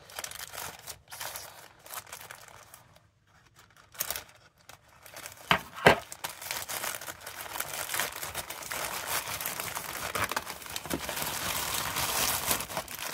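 Small scissors snipping open a plastic poly mailer, with a sharp clack about six seconds in. After that comes steady crinkling and rustling of the plastic as the mailer is pulled open and the packets inside are handled.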